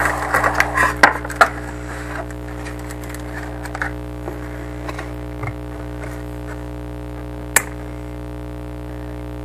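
Plastic toy packaging crinkling and clicking under the hands as a doll's shoes are worked out of their blister, busiest in the first two seconds, then scattered small clicks and one sharp click later on, over a steady low hum.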